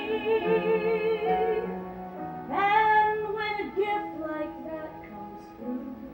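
Sung musical-theatre ballad: a singer holds a long note with vibrato over accompaniment, then starts a new phrase about two and a half seconds in.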